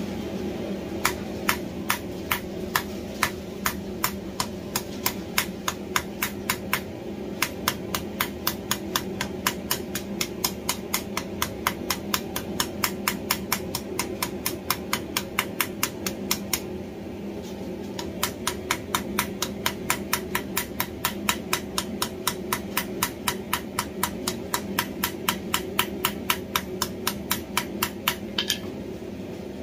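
Hand hammer striking red-hot steel tongs on an anvil in a quick steady rhythm, about three blows a second, with a short pause just past the middle. A steady hum runs underneath.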